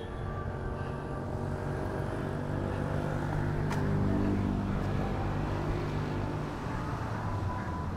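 A motor vehicle's engine on a nearby road: a low hum that grows louder to about halfway through and then fades as the vehicle passes.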